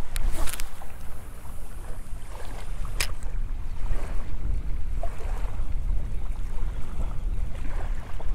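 Wind buffeting the microphone, a steady low rumble throughout, over a cast with a Daiwa Certate 4000HD spinning reel. The line hisses off the spool in the first second or two, and a sharp click comes about three seconds in as the bail snaps shut for the retrieve.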